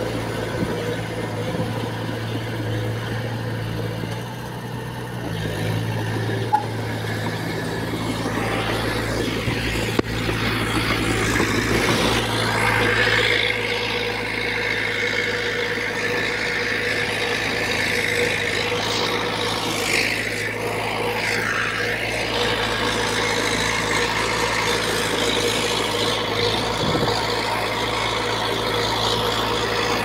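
Diesel engine of a small Komatsu D20P crawler bulldozer running steadily under load as it pushes soil, with a couple of sharp knocks in the first third.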